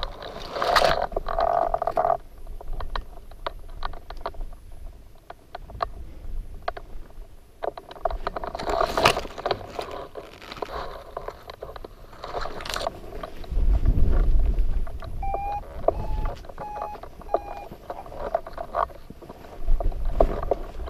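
Gusty wind buffeting the microphone, mixed with clicks and rattles of hang-glider gear being handled. A short run of steady-pitched electronic beeps comes about midway.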